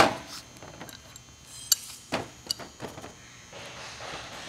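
Hand wrenches being handled and set down on a work mat: a sharp knock at the start, then a few light metal clinks and taps.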